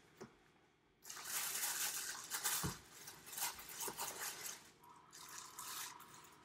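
Crinkling and rustling of a clear plastic wrapper and packing paper as a pair of boots is unpacked from a cardboard shoe box, with a couple of soft knocks from the box.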